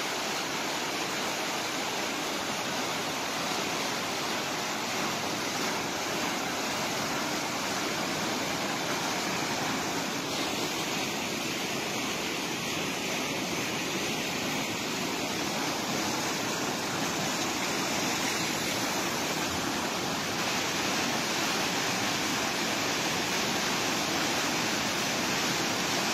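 Steady rush of fast, turbulent floodwater in the Bregalnica river, swollen and running high after heavy rain.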